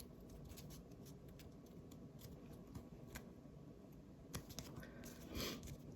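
Faint light clicks and rustles of trading cards being handled and slid past one another, with a short soft swish about five and a half seconds in.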